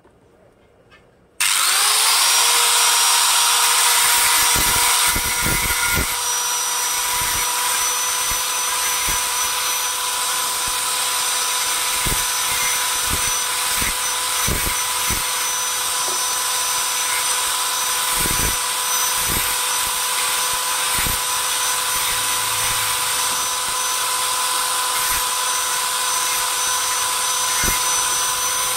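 Handheld angle grinder switched on about a second and a half in and running steadily at a high whine, its disc grinding the steel blade frame of an ID card punch to sharpen it, with irregular knocks as the disc meets and leaves the metal.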